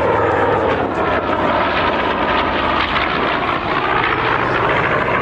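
An aircraft engine droning steadily and loudly as an aircraft flies over the show.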